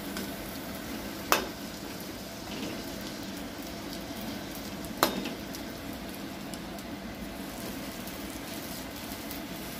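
Golgappa puris deep-frying in hot oil, a steady sizzle. A metal slotted spoon knocks sharply against the pan twice, about a second in and again about five seconds in.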